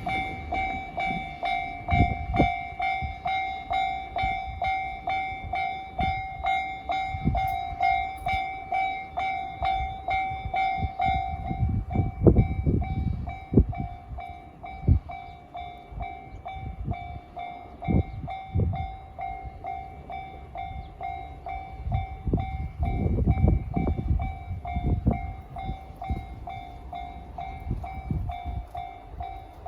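A JR-standard electronic level-crossing alarm rings a steady, evenly repeated tone, louder in the first half and fainter afterwards. A train passes over the crossing at the same time, its wheels thumping over the rail joints, heaviest around the middle and again near the end.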